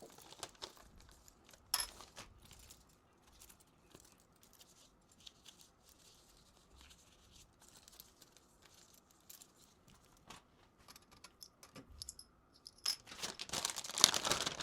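Beaded wallet tassels being handled: scattered light clicks of beads knocking together, then a louder burst of clinking and jangling near the end.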